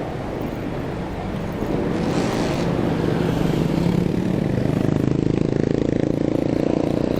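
Motor vehicle engine in street traffic, its drone rising in pitch about three seconds in and then holding steady, over a steady rush of road and wind noise, with a short hiss about two seconds in.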